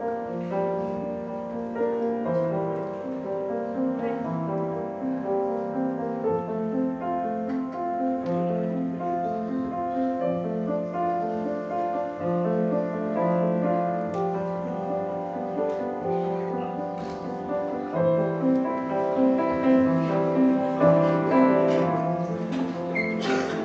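Grand piano played solo: a slow piece with long held bass notes under a moving melody.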